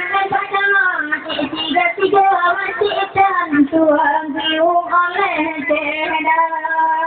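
High female voices singing a wavering melody, settling into a long held note near the end.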